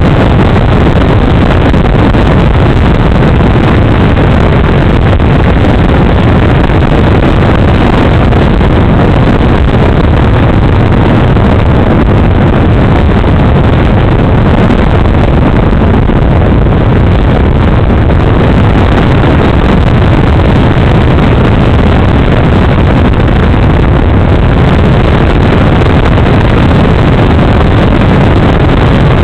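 Propeller and motor of a Super Cub RC model plane in flight, heard on its onboard camera as a loud, steady whirring noise, mixed with wind rushing over the microphone.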